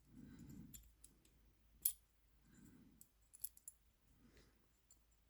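Faint, small clicks of the parts of a tiny lever lock being handled and fitted back together: one sharp click about two seconds in, then a few quick clicks a little past the middle, with soft handling noise between.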